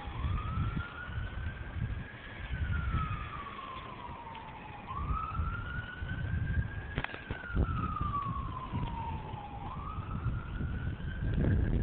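Siren wailing, one tone sliding slowly up for about two seconds and back down for about two and a half, repeating about every five seconds. A low rumble of wind buffets the microphone, and there is a single sharp click about seven seconds in.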